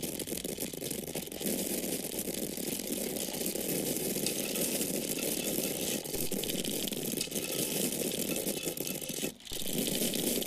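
Dry corn kernels pouring in a steady stream, a dense patter of many small grains hitting one another and a surface. The flow breaks off for a moment about nine seconds in, then starts again.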